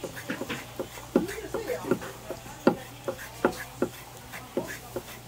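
Kitchen knife knocking on a wooden cutting board as fresh squid is sliced into thin strips for sashimi, in irregular strokes, roughly two a second.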